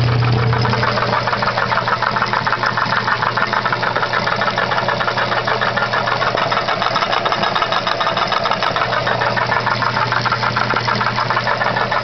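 Old Kenmore AC electric motor humming steadily as it belt-drives an Enterprise No. 750 grinder, with a fast, even clatter from the running machinery.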